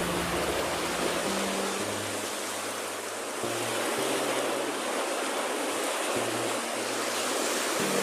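Small waves breaking and washing up a sandy beach: a steady rush of surf, with faint low bass notes of music underneath.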